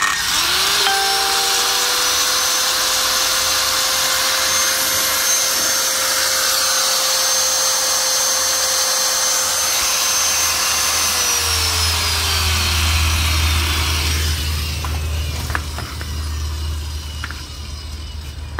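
Electric angle grinder switched on with nothing to cut: the motor whine rises as it spins up, holds a steady pitch for about ten seconds, then falls away as it is switched off and coasts down. A few light clicks and knocks follow as the tool is handled.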